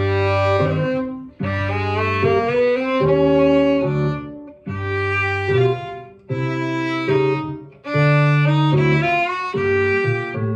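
Violin played with the bow through a short chromatic exercise tune, in phrases broken by brief pauses every couple of seconds, over a lower accompaniment part.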